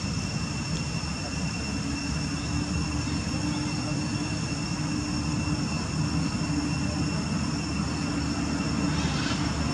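A steady low drone, engine-like, with thin steady high-pitched whines held over it.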